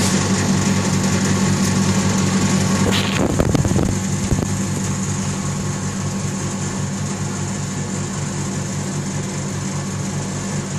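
Oil-sealed vacuum pump running with a steady hum, pulling the furnace chamber down to negative pressure. A brief clatter of knocks about three to four seconds in, after which it runs a little quieter.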